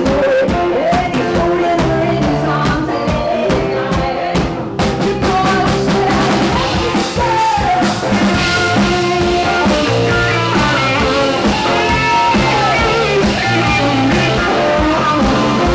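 A live pop-rock band playing: a singer's voice over electric guitar, drums and keyboard.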